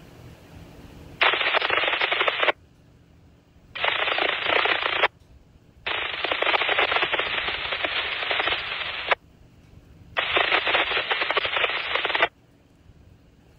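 Radio scanner giving four bursts of crackling static, each one to three seconds long, switching on and off abruptly as transmissions key up.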